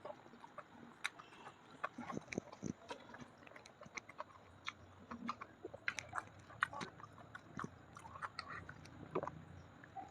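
Close-up mouth sounds of someone eating: irregular wet smacks and clicks of chewing and biting, about several a second.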